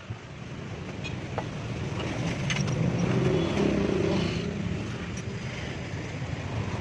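A motor vehicle's engine running, a steady rumble that grows louder over the first few seconds and holds.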